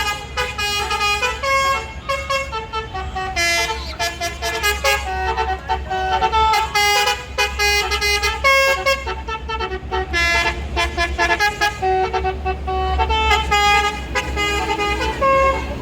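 Bus 'basuri' telolet horn, a multi-trumpet horn set, playing a fast tune of short stepped notes, sometimes several at once, over the steady low rumble of engine and road.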